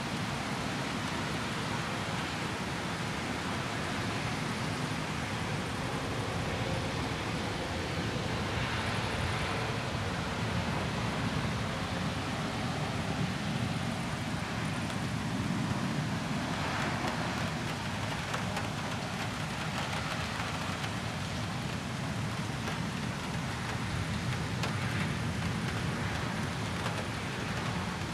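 Steady rushing noise of a thunderstorm's rain and wind, heaviest in the low range, swelling a little midway.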